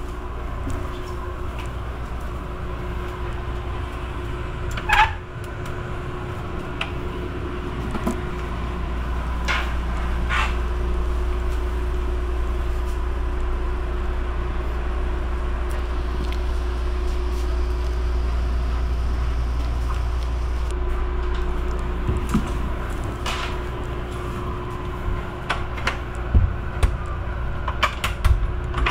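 Interior running noise of an Amtrak Superliner passenger car: a steady low rumble with a faint steady hum. Scattered clicks and knocks come through it, the loudest a sharp clunk about five seconds in, and a cluster of knocks comes near the end.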